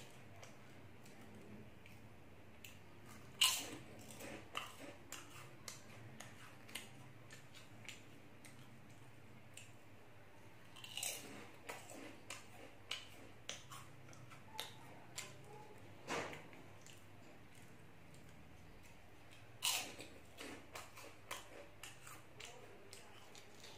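A person chewing crunchy puffed tube snacks close to the microphone: a run of soft, irregular crunches, with four louder bites spread through.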